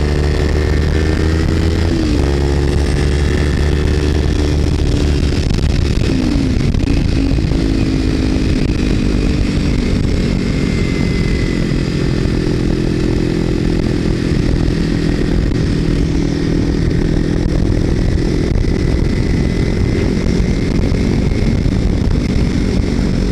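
Kawasaki Ninja 300's parallel-twin engine running through a Screaming Demon slip-on exhaust with its baffle removed. The pitch dips quickly twice in the first seven seconds, then holds steady.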